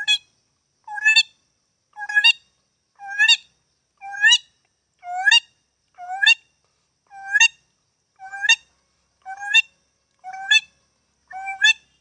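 A man's vocal imitation of a hungry bird calling while it searches for food: a short rising call repeated about once a second, about a dozen times, evenly spaced.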